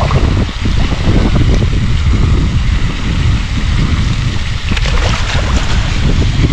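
Wind buffeting the microphone: a loud, unsteady low rumble, with a brief sharp knock about three-quarters of the way through.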